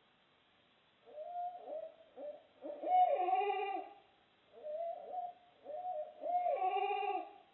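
Barred owls hooting: two phrases of rhythmic hoots, one starting about a second in and one near the middle, each ending in a long drawn-out hoot that drops in pitch at the end.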